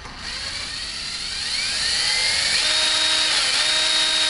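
Power drill boring out the rivet on the side of a door's metal spring latch casing. The whine rises in pitch, then holds steady and high, dipping briefly about three seconds in.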